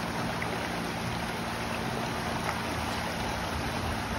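Shallow rocky river flowing over stones: a steady rush of water.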